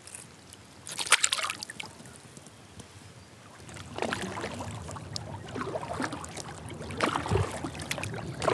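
Kayak paddle dipping and pulling through calm water in steady strokes, about one every second and a half, with water dripping and sloshing off the blade; a single splash comes about a second in, before the strokes start.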